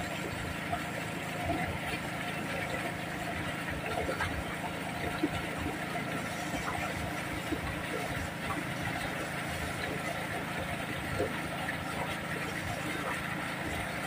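Small Robin gasoline engine running steadily at constant speed, driving a water pump.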